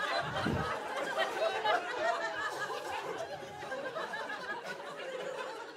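Audience laughing after a punchline, the laughter slowly dying away.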